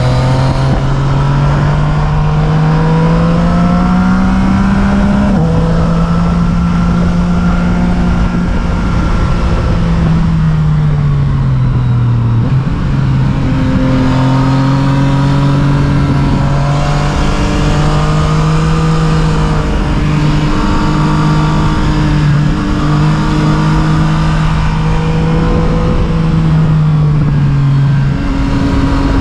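A road vehicle's engine running at changing revs. Its pitch climbs over the first five seconds, then drops at a gear change, falls again around ten to twelve seconds in, holds fairly steady through the middle, and sinks again near the end.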